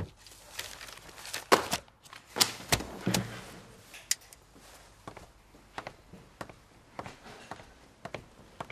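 Papers rustled and set down with a few knocks on a desk as a man gets up, then his footsteps, a little under two a second.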